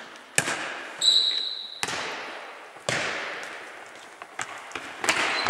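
A football in a foot-tennis game being kicked and bouncing on a wooden sports-hall floor: about four sharp hits, each ringing out in the hall's echo. A short high squeak comes about a second in.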